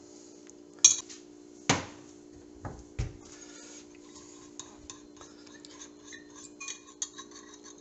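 Metal spoon stirring and scraping in a small glass bowl, mixing honey into rice vinegar. A few sharp clinks of metal and glass come in the first three seconds, the loudest about two seconds in, followed by lighter scraping and tapping.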